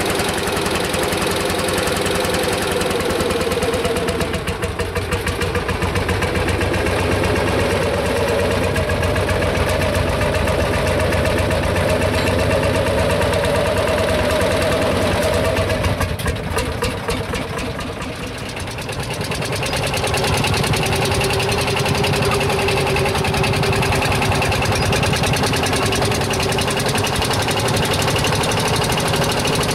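Single-cylinder two-stroke hot-bulb tractor engine running with a steady, rapid beat. Its level dips briefly about four seconds in and again after the middle, then picks back up.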